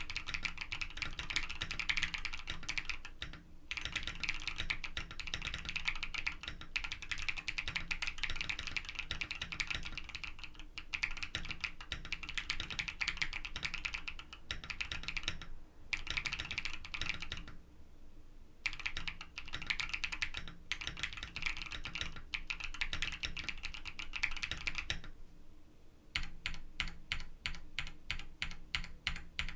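Fast typing on a Mode Sonnet mechanical keyboard with a POM plate, fitted with stock, factory-lubed KNC Green Jacket tactile switches, broken by a few short pauses. Near the end it changes to slower, evenly spaced key presses, about three a second.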